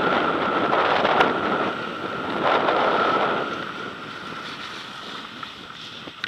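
Wind rushing over the microphone of a ski-mounted camera and skis sliding on packed snow during a downhill run, with a thin steady whistle through it; the noise dies down after about three and a half seconds as the skier slows to a stop.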